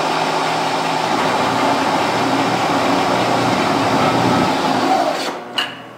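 Bridgeport vertical mill running a friction stir weld in 1018 mild steel: a loud, steady machine noise that dies down about five seconds in, followed by a single sharp click.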